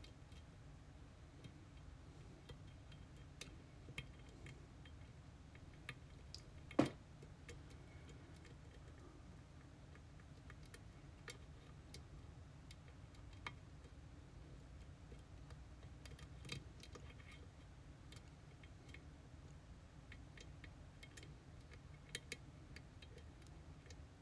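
Faint, scattered small metal clicks and ticks of a lock and pick tools being handled, with one sharper click about seven seconds in.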